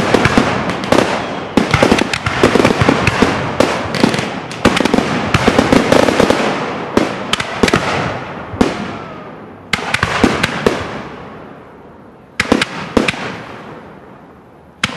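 Fireworks: a dense barrage of bangs and crackle from aerial shells and rising comets, thinning after about eight seconds into two shorter volleys with quieter gaps between.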